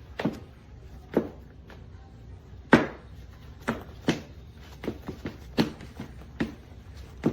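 A series of sharp, hard knocks, about ten of them at uneven intervals, some close together.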